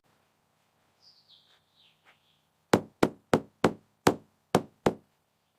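A quick series of seven sharp knocks, like hammer blows, each ringing briefly.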